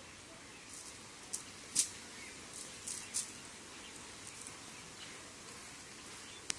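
Outdoor ambience by a pond: a steady hiss with a handful of short, high chirps, a cluster of them between one and three seconds in and one more near the end.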